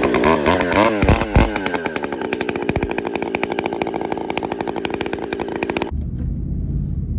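Two-stroke chainsaw revving, its pitch rising and falling, then held steady at high speed. It cuts off abruptly about six seconds in, leaving a low steady rumble.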